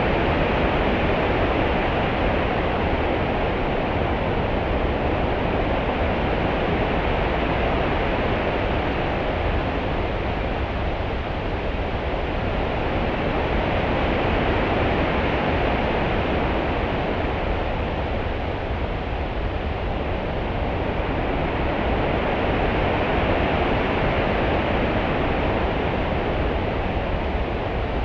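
Open-sea ambience: a steady wash of water noise with a low rumble underneath, swelling and easing slowly about every nine or ten seconds like a long swell.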